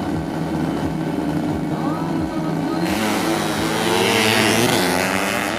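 Two tuned 130cc underbone (bebek) drag bikes: engines revving unevenly in the first part, then about three seconds in both go to full throttle and race past, their pitches gliding up and down over each other and loudest just before the end.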